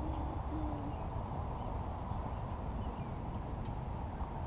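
Steady low rumble of wind buffeting the microphone. Over it come two short, low hooting calls in the first second, and a couple of faint, high, thin chirps near the end.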